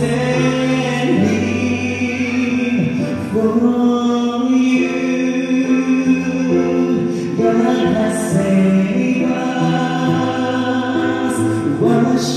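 A man singing into a microphone with long held notes over backing music, amplified through a PA sound system.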